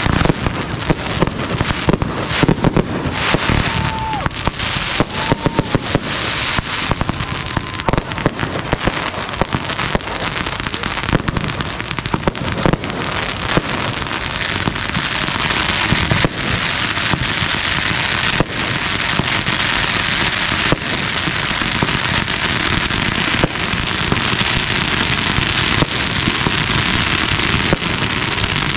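Consumer fireworks going off in a rapid barrage: many pops and bangs of aerial bursts over dense crackling. From about halfway the crackle thickens into a steady fizzing.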